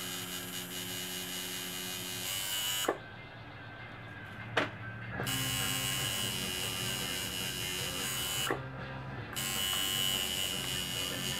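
Coil tattoo machine buzzing steadily as it shades colour into the skin of a forearm, going quieter twice for a moment, with a couple of sharp clicks about three and four and a half seconds in.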